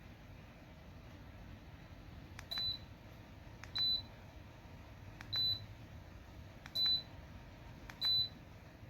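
Sunnote ceramic space heater's control beeping five times, a short high beep about every one and a half seconds, each with a click as a button is pressed, over a faint steady low hum.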